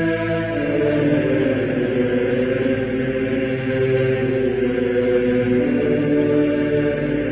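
Slow choral chant with long held notes, playing as intro music.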